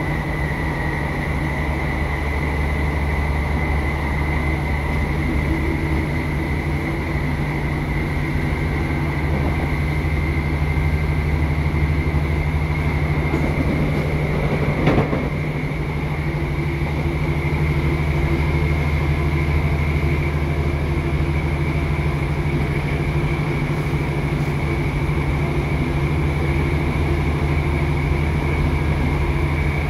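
Steady drone of a British Rail Class 150 Sprinter diesel multiple unit from inside the carriage: the underfloor Cummins turbo-diesel and Voith hydraulic transmission running, with a thin steady high whine over it. A single brief knock comes about halfway through.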